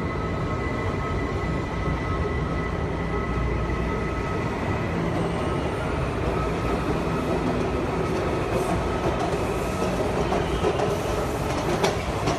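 Washington Metro train rolling past the platform, a steady rumble with a whine of several steady tones running through it. A few sharp clacks of wheels over rail joints come near the end.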